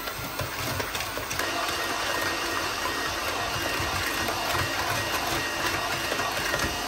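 Electric hand mixer running steadily at one speed, its beaters whisking cake batter in a plastic bowl.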